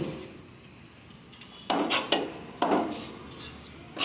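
Heavy knife chopping fish on a wooden log block: after a quieter start, four sharp chops come about half a second apart in the second half.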